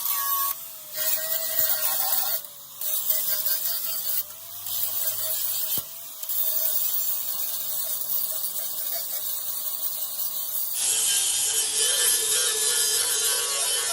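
A power tool running with a steady whine, cutting out briefly four times in the first six seconds. About eleven seconds in, a different, hissier tool sound takes over.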